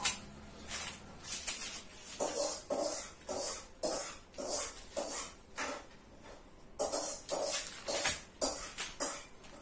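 Pencil scribbling hard across paper, a run of quick back-and-forth strokes about two to three a second, with the paper rustling.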